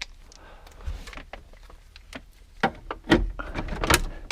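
Scattered clicks and knocks of hand work on a car's interior parts, faint at first, with several sharper knocks in the second half.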